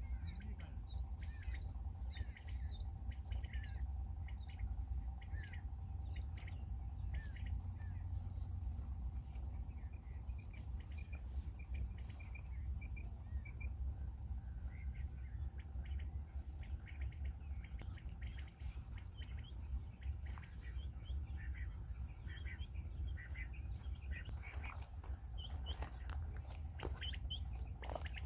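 Small birds chirping in short, scattered notes, over a low steady rumble.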